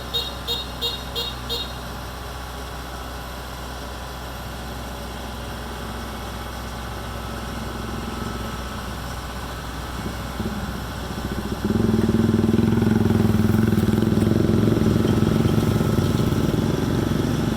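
Kubota DC-70 Pro combine harvester's diesel engine running steadily, with a quick beeper sounding about three times a second for the first couple of seconds. About twelve seconds in the machine suddenly gets much louder and stays loud.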